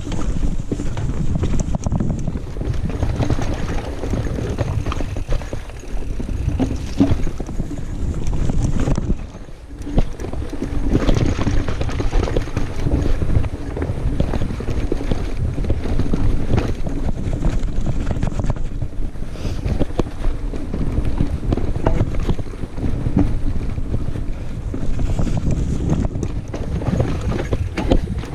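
Wind buffeting a chest-mounted GoPro's microphone, over the rumble and repeated knocks and rattles of a 2018 Giant Reign 2 full-suspension mountain bike rolling over rock and roots. The noise drops briefly about a third of the way in.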